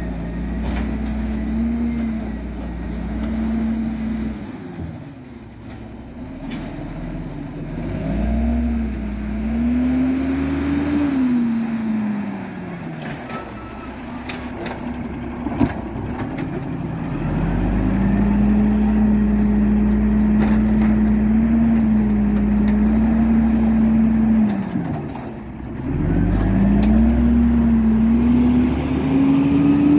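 Automated side-loader garbage truck at the curb: its diesel engine repeatedly revs up and holds high while the hydraulic arm cycles, then drops back between lifts. Air brake hiss a little before halfway, and a single sharp knock just after.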